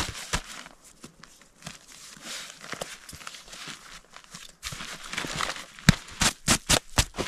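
Rustling and scraping of a nylon hiking backpack as it is closed up and its straps and buckles handled, with a quick run of sharp scraping clicks about six seconds in.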